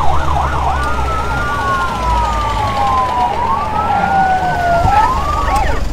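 Siren on an official car: a fast yelp that changes about a second in to slow rising and falling wails, two wails overlapping, over a low rumble.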